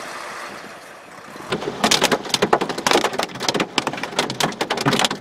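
A steady rush of wind and rain, then about a second and a half in, heavy rain starts hitting a hard surface close by in dense, irregular taps.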